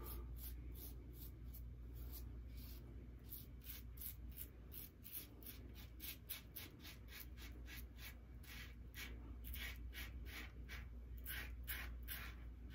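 Double-edge safety razor, a RazoRock Lupo .95, scraping through lathered stubble on the jaw and neck in short, faint strokes, about three a second.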